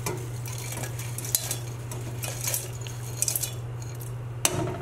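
Dried hibiscus flowers tipped from a small glass bowl into an aluminium pot of water and brushed out by hand: light scattered rustles and clicks, with a sharper knock near the end, over a steady low hum.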